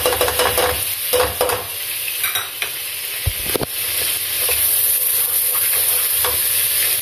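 Browned onions, ginger-garlic paste and ground spices sizzling in hot oil in a metal pot, stirred and scraped with a wooden spoon, with a few knocks of the spoon against the pot in the first half.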